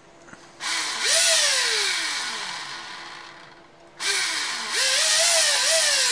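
Traxxas Velineon brushless RC motor, running free with the spur gear removed, throttled up twice: each time a grinding whine climbs quickly, then falls away as the motor coasts down, the second burst rising twice before it fades. The owner is pretty sure the noise comes from a bad motor bearing.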